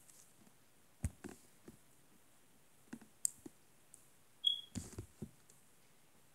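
A gloved hand squeezing and poking a greasy slime made from Vaseline and mouthwash: scattered quiet clicks and sticky taps in small clusters, with a brief high squeak about four and a half seconds in.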